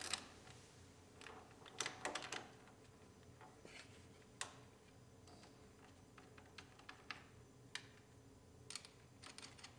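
Faint, irregular small clicks and taps of battery cable terminals and nuts being fitted by hand onto a pickup's battery junction box, over near silence.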